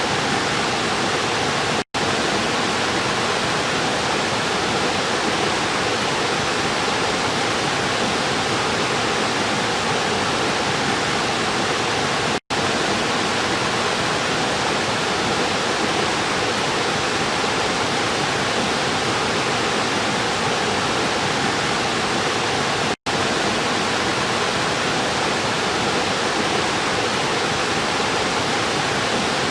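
A river's water rushing in a steady, dense wash, cut by three momentary dropouts to silence about ten seconds apart.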